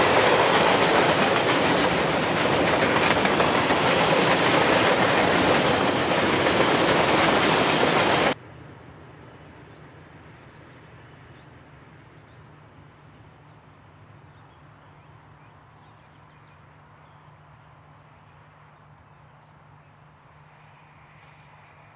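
KiwiRail container freight train passing close by: loud, dense wheel-on-rail noise from the rolling wagons. About eight seconds in it cuts off suddenly to a much quieter, distant train sound with a faint steady low hum that slowly fades.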